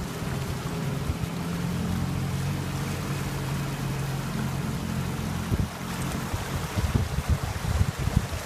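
Land Rover engine running steadily as the truck wades through deep water on a flooded trail. From a little past halfway, irregular splashing and sloshing of water against the vehicle takes over and is the loudest part.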